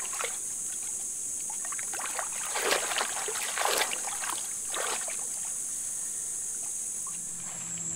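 Water sloshing and splashing as a dog wades through shallow floodwater, with a few louder splashes about three to five seconds in. A steady high drone of insects runs underneath.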